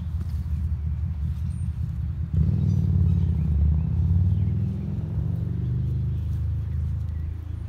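A steady low engine rumble that gets louder about two and a half seconds in.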